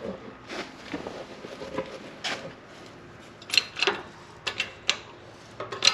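Harbor Freight manual hydraulic press being worked to force a socket down onto a carriage bolt's head, giving a series of irregular clicks and knocks.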